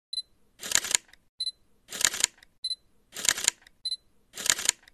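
Camera shutter sounds, each one after a short high beep, repeating evenly about every second and a quarter, four times over.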